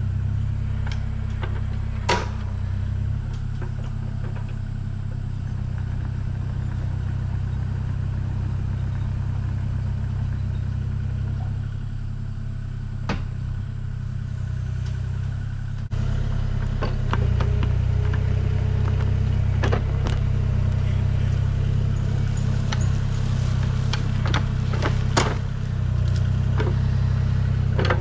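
Kubota KX040-4 mini-excavator's diesel engine running steadily while it digs a trench in rocky soil, with occasional sharp knocks and clatter from the bucket. It gets louder from about halfway through.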